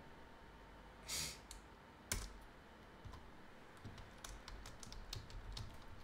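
Computer keyboard typing, faint: a single sharp keystroke about two seconds in, then a quick run of light key clicks in the second half. A brief breathy hiss comes about a second in.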